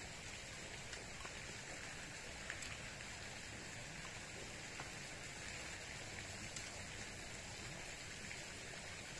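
Steady, even outdoor background hiss, like light rain or running water, with a few faint soft clicks of someone eating ripe papaya.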